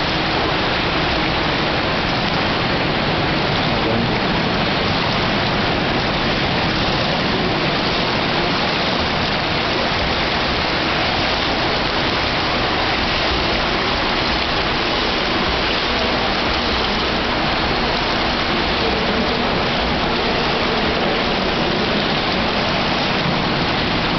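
Steady rushing and splashing of swimming-pool water, an even wash of noise with no separate splashes standing out.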